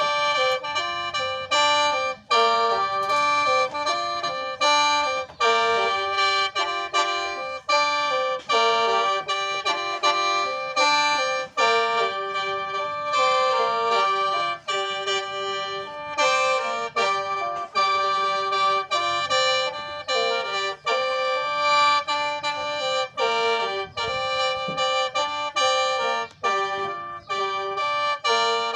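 Khaen, the bamboo free-reed mouth organ of Isan and Laos, playing a melody over steady held drone notes, with brief gaps every second or two.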